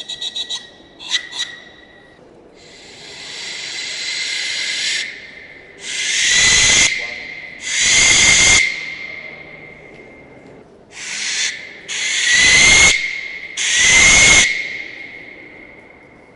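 Ancient Mexican resonator whistle blown repeatedly. It opens with a quick fluttering warble, then gives a long swelling hiss, then five loud, hissing blasts of about a second each. A thin whistling tone runs through each blast and bends slightly upward.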